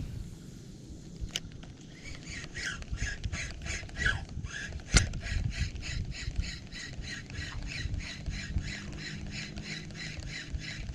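A 2000-size spinning reel being cranked on the retrieve: an even, rhythmic ticking from the turning reel, about four a second, starting about two seconds in. There is a single sharp click near the middle.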